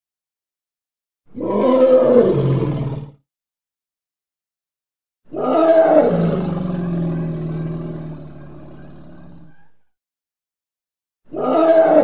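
Elephant roar sound effects: three separate calls with silence between them. The middle call is the longest, about four seconds, and settles into a low drawn-out tone that fades. The third call starts near the end.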